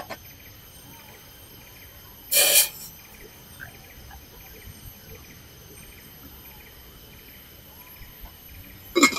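Night forest ambience: a steady insect drone at several high pitches with a faint chirp repeating about twice a second. It is broken by a short loud noisy burst about two and a half seconds in and another sharp burst near the end.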